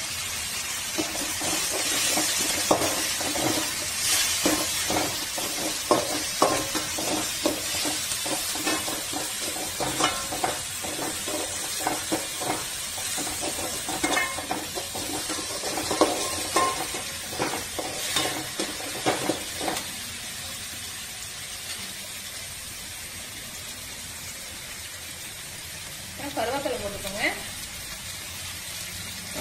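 Sliced onions and chopped tomato frying in hot oil in a metal kadai, sizzling steadily. For about the first twenty seconds a metal spatula scrapes and clinks against the pan as the mixture is stirred. After that only the quieter sizzle goes on.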